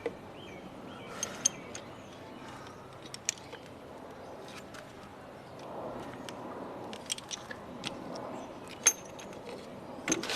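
Scattered light metallic clicks and clinks of hand tools being handled against a steady background hiss, while the spark plug is worked loose on a motorcycle engine.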